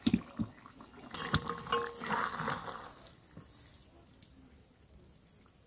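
A black wok of liquid fish-and-cauliflower curry set down with a couple of knocks, then a flat metal spatula stirring through the curry with wet sloshing and clinks against the pan for about two seconds before it quietens.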